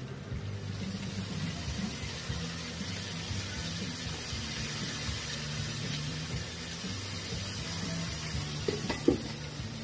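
Water squirted onto a hot Blackstone flat-top griddle, sizzling in a steady hiss as it turns to steam around the broccoli under a dome lid.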